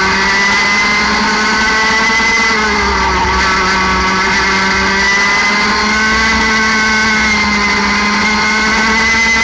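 60cc two-stroke kart engine running at high revs under racing load, around 11,000 to 12,000 rpm. Its pitch dips slightly about three seconds in, then climbs again toward the end.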